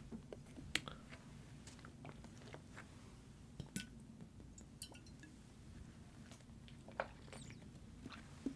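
Close-miked swigging of rum straight from a glass bottle, then a drink of juice from a carton as a chaser: faint gulps and wet mouth sounds. Scattered sharp clicks and knocks come from the bottle and carton being handled.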